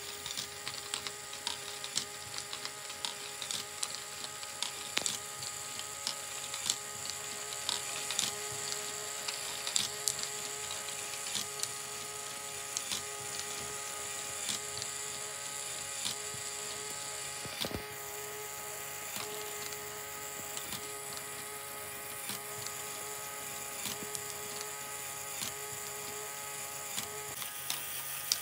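Lego Technic great ball contraption elevator running: a small electric motor whines steadily as it turns the lift's gear train, with many irregular clicks and knocks from small plastic balls being lifted and dropping. One louder knock comes about two-thirds of the way through.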